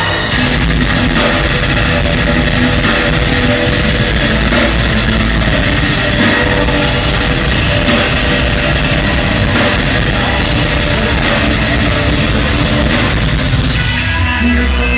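A live heavy rock band playing loud: distorted electric guitars and drum kit, heard from the audience in a club hall.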